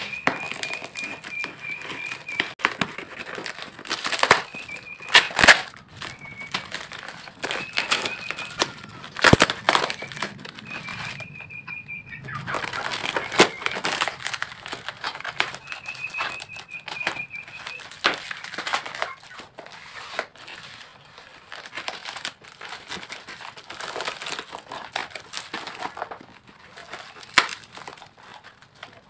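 Plastic stretch-wrap packaging crinkling and rustling as it is cut with scissors and torn open by hand, with many short sharp snips and snaps. A thin high squeal comes and goes several times.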